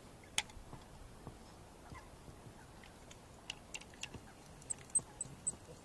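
Scattered sharp clicks and ticks of fishing tackle during a cast and retrieve: one crisp click early, then a cluster of light ticks a few seconds in. A few faint, high chirps repeat near the end.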